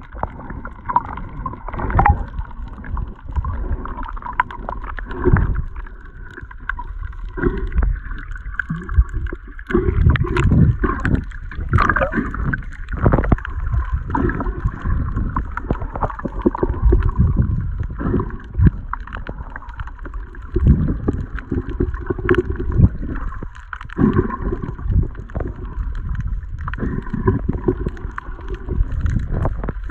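Underwater sound picked up by a snorkeler's camera: irregular muffled sloshing and thumps of water moving against the camera, over a steady faint hum.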